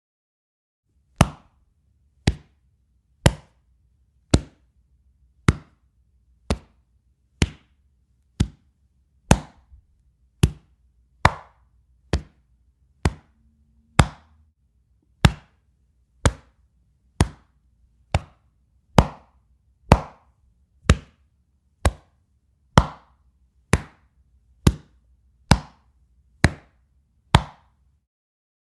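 Chest impact body hits: a series of about 28 sharp smacks, about a second apart, each short with a quick decay.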